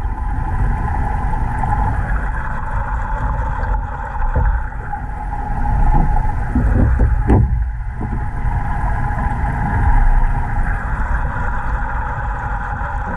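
Underwater sound in a large aquarium tank: a steady rumbling hum carried through the water, with a few knocks and scrapes around the middle as a PVC bottom-drain screen is handled and fitted.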